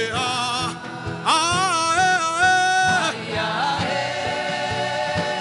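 Gospel worship music: a voice sings long held notes, the longest in the first half, over sustained chords and a steady beat.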